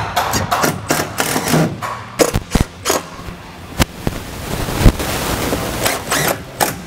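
Makita 18V cordless impact driver running self-tapping screws through diamond-plate aluminium ceiling trim into the van's steel ribs: short rattling bursts of rapid clicks near the start and again near the end, with scattered sharp knocks of the metal trim being handled in between.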